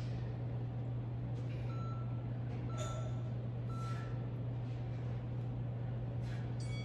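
Three short, high electronic beeps, one second apart, over a steady low hum; another brief beep comes near the end.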